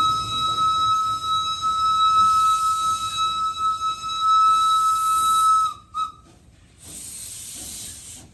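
Steam locomotive whistle blowing one long, steady single-note blast of about six seconds, then cutting off, followed by a quieter hiss of steam.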